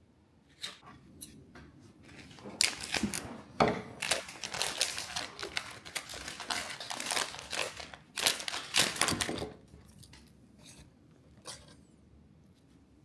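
Foil blind-bag packet being opened by hand, its wrapper crinkling and rustling loudly for several seconds, then quieter rustles near the end.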